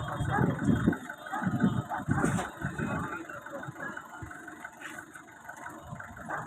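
An engine running, its low rumble surging unevenly and strongest in the first couple of seconds before settling lower.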